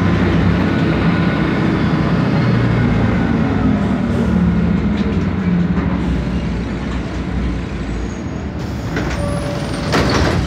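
MAN D2866UH six-cylinder diesel of a 1993 Sanos S215 city bus running under way, heard from inside the cabin. The engine note rises a little early on, then the sound eases off in the second half as the bus slows. A short burst of noise comes near the end.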